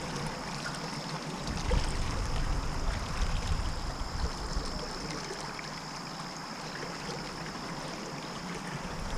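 Steady hiss of running creek water, with a thin steady high tone above it and a low rumble that comes and goes.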